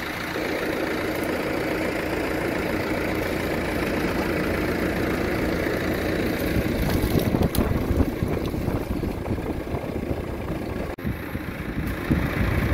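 Large farm tractor's diesel engine running steadily at close range, with a brief drop about eleven seconds in.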